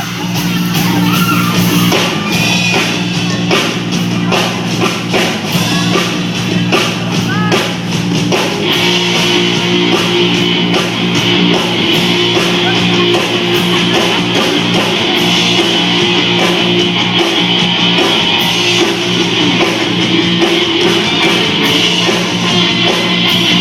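Rock band playing live: electric guitar and drum kit, with steady regular drum hits.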